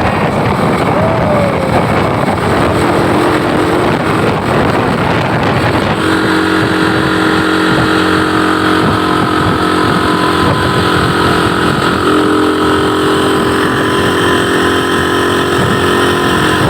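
Steady engine and road noise from a vehicle driving along a road, with a steady droning engine tone joining about six seconds in.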